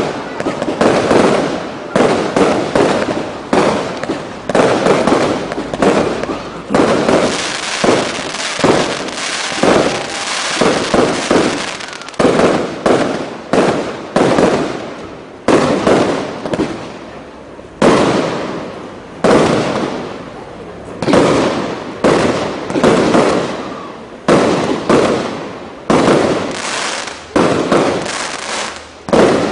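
Aerial fireworks display: shells bursting in close succession, about one or two sharp bangs a second, each trailing off in crackle and echo before the next.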